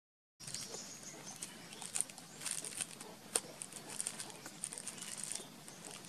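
Thin plastic bag crinkling and rustling as a baby monkey picks at it with its fingers and mouths it: a busy run of small crackles and sharp ticks that starts just after a brief silent break.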